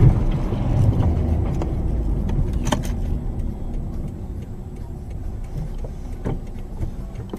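A car driving, heard from inside its cabin: a low road and engine rumble that slowly fades. A sharp knock comes near three seconds in and another just after six seconds.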